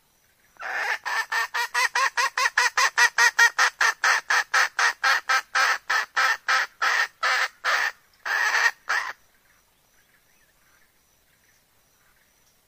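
A hen calling: a rapid run of about thirty short clucking notes, fast at first and slowing as it goes, then after a short pause one longer note that ends it about nine seconds in.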